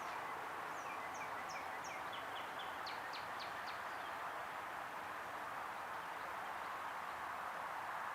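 A bird chirping a quick run of short, high notes during the first half, over a steady background hiss.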